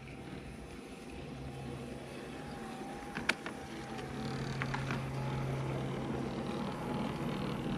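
A 1:24 scale electric model tram's motor and gearbox whining steadily, getting louder as it approaches and passes, with a sharp click about three seconds in and a few fainter clicks after. One of its gearboxes is noisy from deteriorated lubricating grease.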